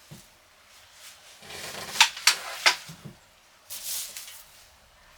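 A heavy metal monitor stand being handled and set down. Three sharp knocks come about two seconds in, followed shortly after by a brief rustle.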